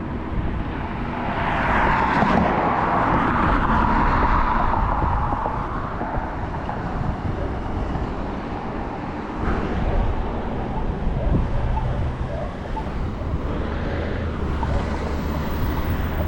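Wind buffeting a GoPro microphone on a moving electric scooter, a constant low rumble mixed with road noise. A louder rushing swell builds and fades about two to five seconds in.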